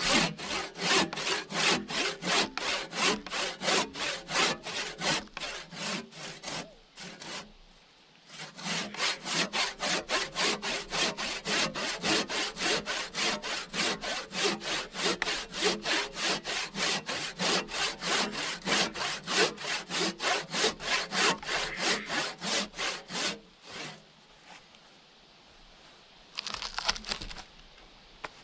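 Handsaw cutting through a log in fast, even back-and-forth strokes, about three a second. The sawing pauses briefly about seven seconds in and stops near the end, followed by a short rustling scrape.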